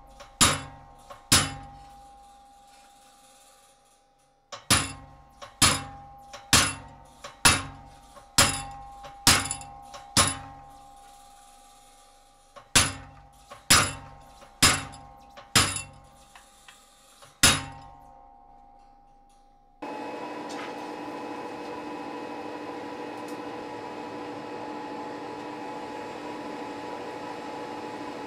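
Treadle hammer striking a short cold chisel into cold sheet steel, cutting out a jack-o'-lantern face: sharp ringing metal strikes about one a second, in three runs with short pauses. About 20 seconds in this gives way to the steady rushing noise and hum of a coal forge fire.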